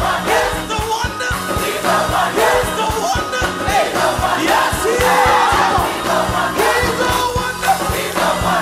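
Live gospel music: a mass choir singing with a band, drums keeping a steady beat.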